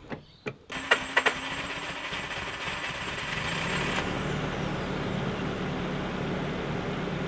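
Nissan SR20DE four-cylinder engine being cranked by its starter and catching under a second in, then running steadily.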